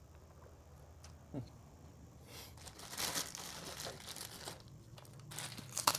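Close-miked chewing and crunching of crispy fried food, in crackly bursts starting about two seconds in, with a sharp crunch near the end.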